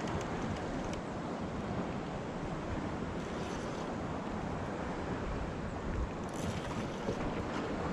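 Steady rush of wind and sea water, with wind buffeting the microphone.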